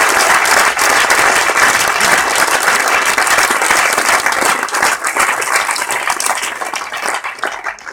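Cinema audience applauding, joined by the group on stage; the clapping thins out and dies away near the end.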